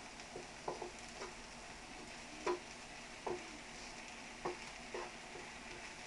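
Rice frying in oil in a wok with a steady faint sizzle, stirred with a utensil that scrapes and knocks against the pan about eight times at irregular intervals.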